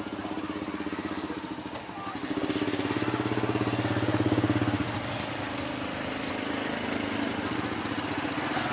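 A small engine running steadily with a fast even pulse. It grows louder about two seconds in and drops back after about five seconds.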